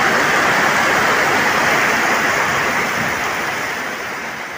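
Heavy downpour: the dense, steady hiss of torrential rain pouring onto a wet road, fading away near the end.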